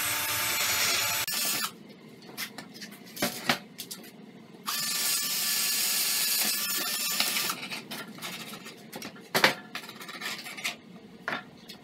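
Cordless drill boring through OSB board in two runs: the first stops about a second in, and the second runs for about three seconds near the middle. Scattered clicks and a sharp knock come between and after the runs.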